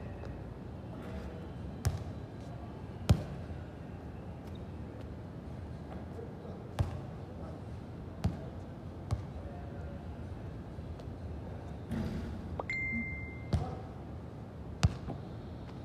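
Seven sharp thumps at irregular intervals over a steady background hiss, with a short high beep about thirteen seconds in.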